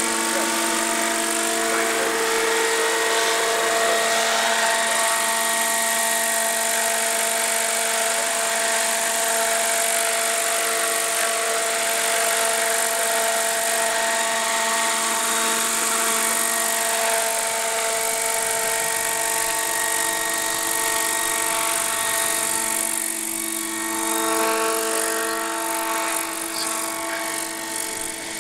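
Roban Airwolf 800-size scale RC helicopter in flight, its rotor and drive making a continuous whine of several steady tones. About two-thirds of the way through, the pitch bends and the sound swells briefly as it makes a close pass, then fades a little as it flies away.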